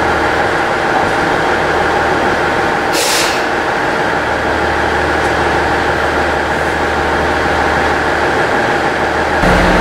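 HB-E300 series Resort View Furusato hybrid railcar creeping into the platform: steady train running noise with several held tones. A short hiss of air comes about three seconds in.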